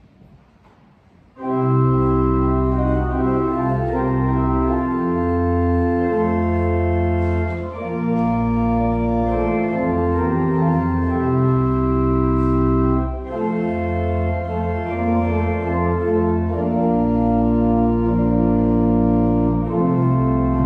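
Church organ playing a hymn in full sustained chords over a deep bass line, the chords changing every second or two. It starts suddenly about a second and a half in, after faint room tone.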